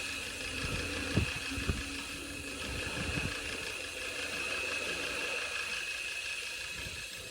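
A machine running steadily with a constant high whine over a low rumble, with a couple of short knocks about a second in.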